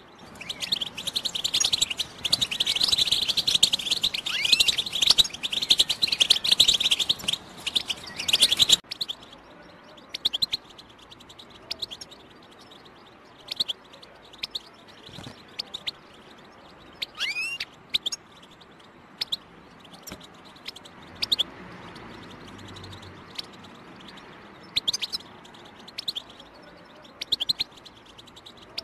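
European goldfinch singing a dense, fast twittering song for about the first nine seconds, which then cuts off suddenly. Scattered short chirps follow, with one rising-then-falling whistled call about two-thirds of the way through. This is the 'batbata' chatter that keepers play to get a goldfinch singing.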